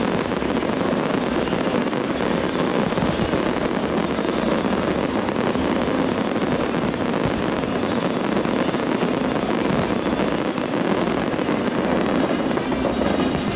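Fireworks display: a dense, unbroken barrage of many shells bursting and crackling at once, at a steady loud level.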